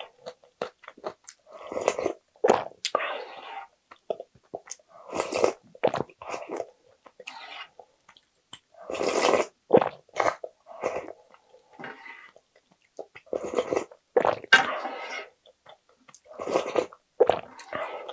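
Eating sounds: rice soaked in beef-bone ramen broth is slurped from a wooden ladle and chewed, in short spells with quiet gaps between.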